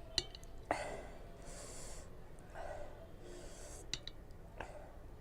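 A person breathing hard and sniffling, in short hissy breaths, with a few small sharp clicks. The breathing comes from the burn of very spicy noodles.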